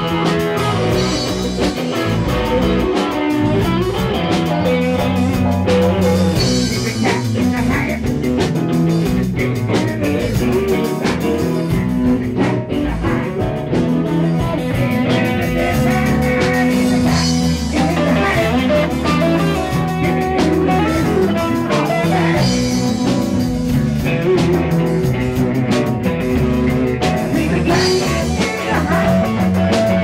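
Live rock band playing: keyboard, electric guitars and a drum kit.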